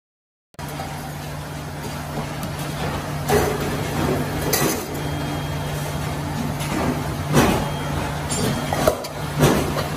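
Four-column hydraulic deep-drawing press humming steadily from its pump, with several sharp metal clanks as a deep-drawn metal part is handled and lifted out of the die.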